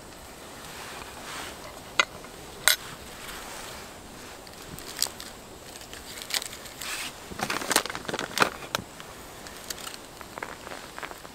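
Handling of food while building a burger: crisp lettuce leaves crinkling and being pulled apart, with a dense run of crunchy crackles about seven to nine seconds in. Two sharp clicks about two seconds in.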